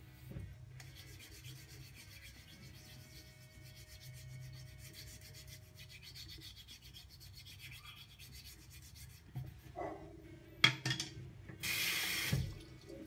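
Faint, quick rasping strokes of a sandpaper manicure stick, smooth side, rubbed over wet, soapy palm skin to file calluses level. Near the end, a sharp knock and then about a second of running tap water, the loudest sound here.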